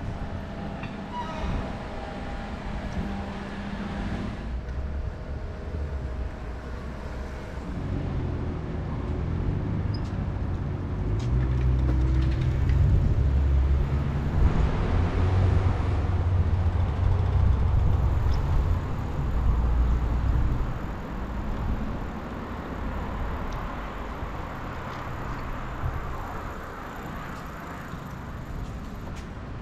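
Street traffic, with a motor vehicle's engine passing close by: it builds up about a quarter of the way in, is loudest around the middle, then fades away.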